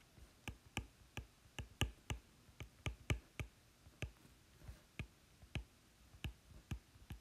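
Apple Pencil tip tapping on an iPad's glass screen during handwriting: a run of sharp, light clicks, about three a second and unevenly spaced.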